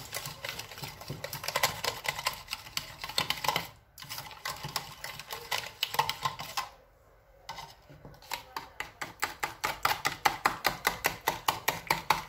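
Small wire whisk beating lemon juice and powdered sugar into a smooth glaze in a measuring jug: quick rhythmic clicking of the whisk against the jug's sides, about five strokes a second, pausing briefly about halfway through.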